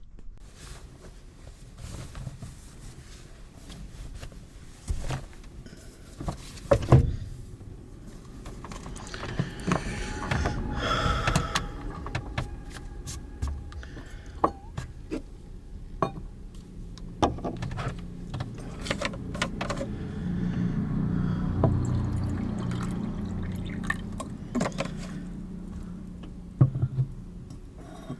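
Liquid being poured, with scattered clicks and knocks from handling things, and a longer steady pour from about the middle to near the end.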